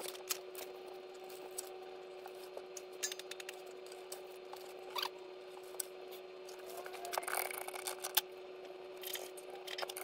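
Light scattered clicks, taps and rubs of small hand tools and hardware being handled at a guitar, over a steady faint hum, with a short upward-sliding squeak about halfway through.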